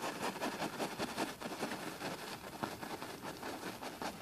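Filbert brush scrubbing paint onto canvas in repeated short strokes, a dry scratchy rasp.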